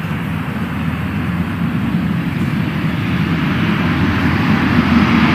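Engines of a high-wing military transport plane droning steadily as it moves along the airstrip toward the listener, growing slowly louder.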